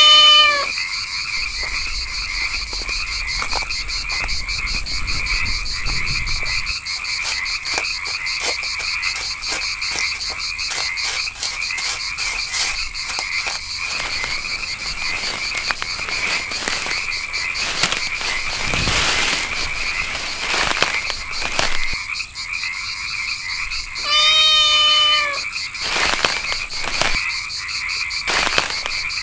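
Steady night chorus of frogs trilling. A cat meows loudly at the very start and again about 24 seconds in, and brushing rustles of leaves and undergrowth come in the middle and near the end.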